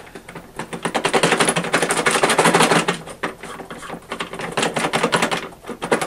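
Coins or other debris rattling inside a front-load washer's drain-pump filter housing as the stuck plastic filter cap is jiggled back and forth: a rapid, continuous clatter of small hard clicks that eases briefly about halfway through. Debris trapped in the filter is jamming it in place.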